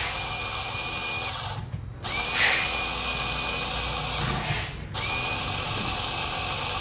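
Electric espresso grinder running, grinding coffee into a hand-held portafilter, with a steady whine. The motor cuts out briefly about two seconds in and again about five seconds in, then starts again each time.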